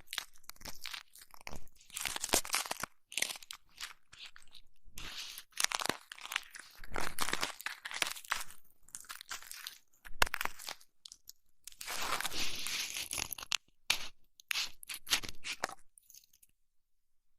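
Close-miked crunching and rubbing on an ear microphone, ASMR ear-massage and ear-cleaning sounds, coming in irregular bursts with short pauses and dying away just before the end.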